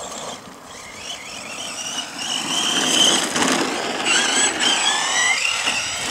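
Brushless electric motor of an Arrma Senton 3S BLX RC short course truck driving, a high whine that rises and falls in pitch with the throttle, over tyre noise.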